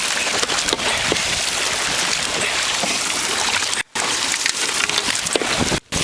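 Dragon boat paddling at speed: a steady hiss of water splashing and rushing along the hull, with irregular knocks from the paddle strokes. The sound cuts out completely twice for a split second, about four seconds in and again near the end.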